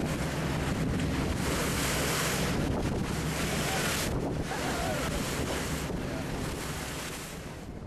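Wind blowing on the microphone and water rushing along the hull of a fishing boat under way, with the boat's engine humming low underneath; the rush swells louder about a second and a half in.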